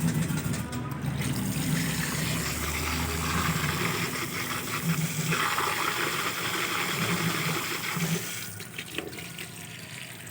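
Water running and splashing as a refrigerator compressor is rinsed out with plain water, easing off to a quieter trickle about eight seconds in.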